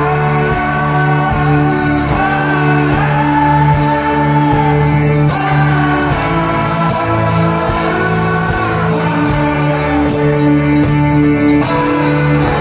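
Music: a guitar song playing, with a bending melody line over steady low notes.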